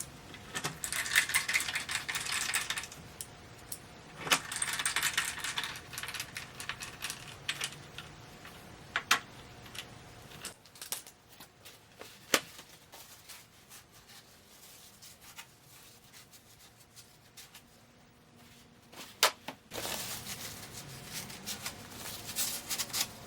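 Small metal fasteners clinking and rattling as they are handled, in three stretches of dense jangling with single sharp clicks between them.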